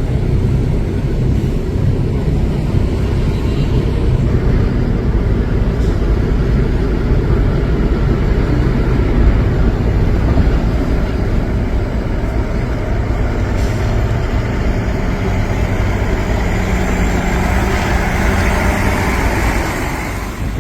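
Heavy diesel earthmoving machinery running steadily under load: a Cat 330 hydraulic excavator digging soil to load dump trucks. A higher hiss builds near the end before the sound eases off.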